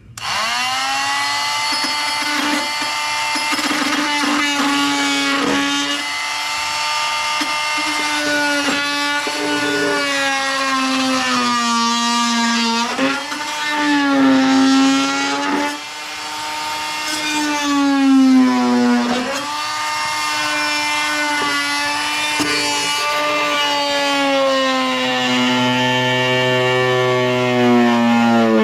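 Corded oscillating cutoff tool (oscillating multi-tool) running flat out with a high motor whine. The pitch sags and recovers again and again as the blade bites into the plastic tab it is cutting.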